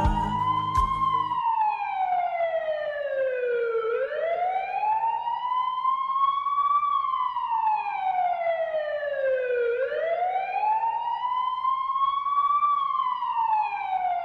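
A siren wailing, its pitch sliding slowly up and then down about once every six seconds. Music cuts off about a second in, leaving the siren alone.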